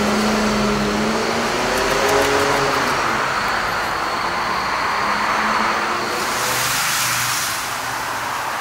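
A car engine running, its pitch drifting slowly up and down, with a brief hiss about six seconds in.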